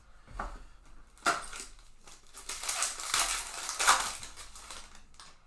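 Trading cards and their foil pack wrapper being handled, with rustling and crinkling and a sharp click about a second in.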